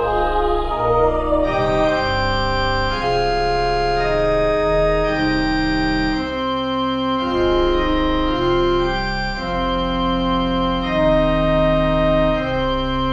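Organ playing slow, sustained chords, each held for a second or two before moving to the next.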